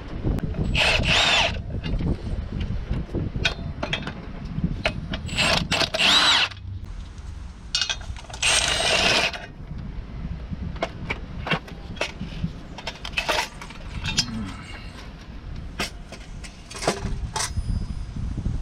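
A handheld power tool run in three short bursts, its motor spinning up and down, with metallic clicks and clinks between them, while the clutch pressure plate bolts are taken out.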